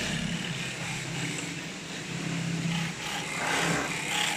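Steady machine din of a sewing workshop: industrial sewing machines running, with a low hum that holds for long stretches and drops out about three seconds in.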